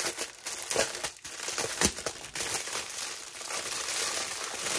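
Small plastic packets of diamond-painting drills crinkling as they are handled, with a few sharper rustles, the loudest about two seconds in.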